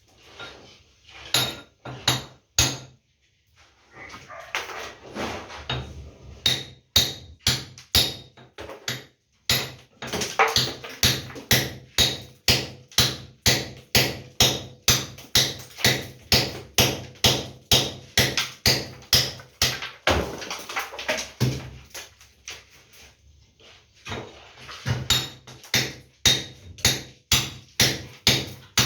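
Hammer striking a room wall over and over, at a steady rate of about two blows a second, in long runs with short pauses between them.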